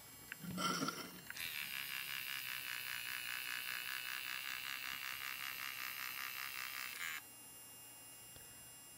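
The 3D Simo 3D printing pen's filament feed motor whirs steadily while it extrudes, with a fast, even pulse, for about six seconds, then cuts off suddenly. A short, louder knock of handling comes just before it starts.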